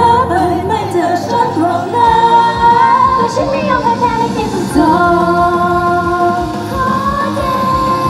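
A pop song performed live by a girl idol group, played through the stage PA speakers: female voices singing a melody over the song's accompaniment.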